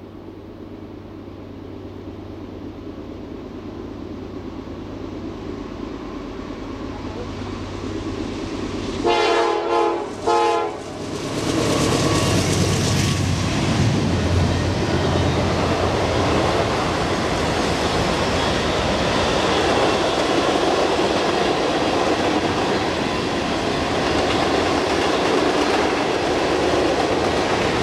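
A freight train led by a GE C40-9W diesel locomotive, its engine rumble growing louder as it approaches. About nine seconds in the horn sounds twice, a longer blast and then a short one. The locomotive then passes and the freight cars roll by with steady wheel and rail noise.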